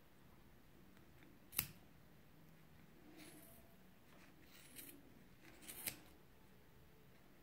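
Scissors snipping through the looped ends of a bundle of 3 mm cotton macramé cord: a few quiet, sharp snips, the clearest about one and a half seconds in, then two or three more between about five and six seconds in.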